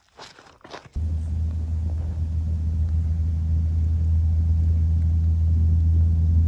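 A few crunching steps, then a steady low rumble that starts abruptly about a second in and holds at an even level.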